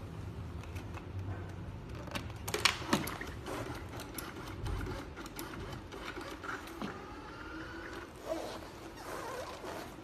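Alfawise X5 robot vacuum cleaner at its charging dock: a low steady hum, then scattered clicks and knocks, the loudest a sharp knock about two and a half seconds in. Near the end the robot's drive motors run as it backs away from the dock.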